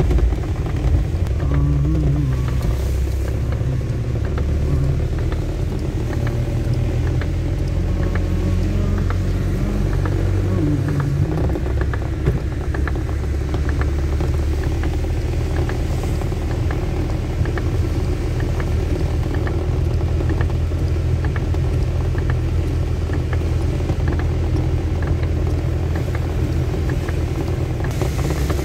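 Steady low rumble of a car driving on a rain-soaked road, heard from inside the cabin: engine and tyres on wet tarmac.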